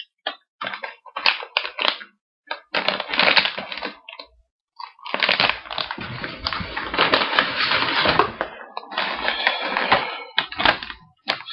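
Crinkly snack-bag plastic and packing material being handled and rustled, in irregular crackling bursts with a couple of short pauses.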